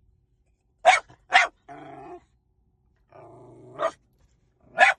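A dog barking four times in short sharp barks, with two low growls in between, the second running straight into a bark.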